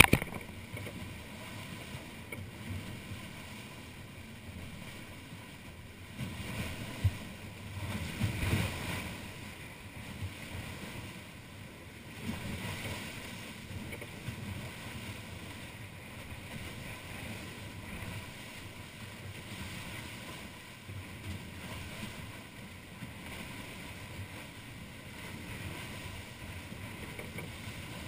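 Wind buffeting the microphone and water rushing and splashing along the hulls of a Wharram Tiki 38 catamaran under sail in choppy sea. The noise is steady, with louder surges about seven to nine seconds in and again around twelve seconds.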